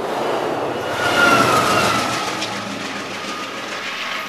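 Amtrak Pacific Surfliner train running past on the rails, a steady rumble of wheel and track noise. From about a second in the sound gets louder and a high tone comes in that slides slightly lower.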